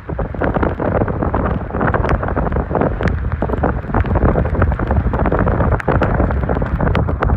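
Wind buffeting the microphone, a loud, continuous rumbling roar with scattered sharp ticks through it.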